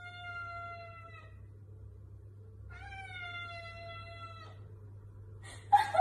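Tabby cat meowing twice in long, drawn-out calls, each falling slightly in pitch.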